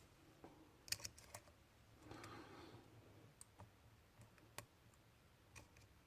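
Faint, scattered small clicks and taps: a quick cluster about a second in, then single clicks spread through the rest, with a soft rustle around two seconds in.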